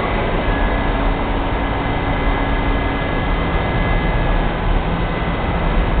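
R68A subway train pulling out of the station: a loud, steady rumble of wheels on rail and running gear, with a few faint high steady tones on top.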